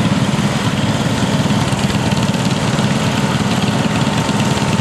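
Garden tractor engine, a 1983 Gravely 8163-B, running steadily, with a faint steady whine coming in about two seconds in.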